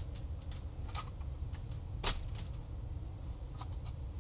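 Scattered light plastic clicks and taps from a toy foam-dart blaster being handled and laid down, with one louder knock about two seconds in.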